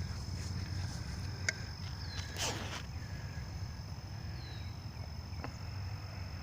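Outdoor ambience of insects: a steady high-pitched insect drone, with a short falling chirp repeating every couple of seconds over a low rumble. A sharp click comes about a second and a half in, and a brief rustling whoosh follows a second later.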